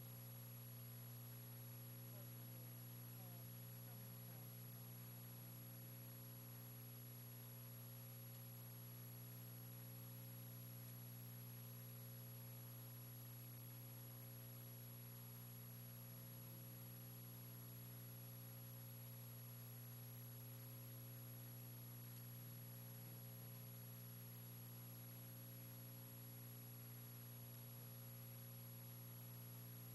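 Near silence: a faint, steady electrical hum with a low hiss.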